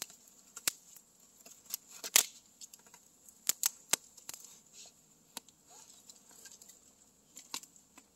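Wood campfire crackling, with irregular sharp pops and snaps, the loudest about two seconds in.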